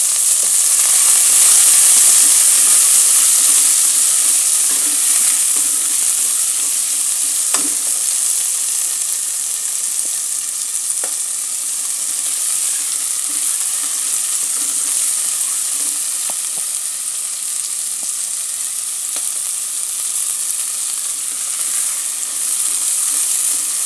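Peas and carrots sizzling as they fry in hot coconut oil in a pot, loudest just after they go in and easing off slowly, with a few light knocks.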